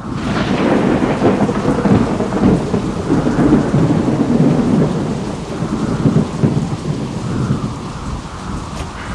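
Thunderstorm sound effect: thunder breaks in suddenly and rolls on for several seconds, slowly fading, over steady rain.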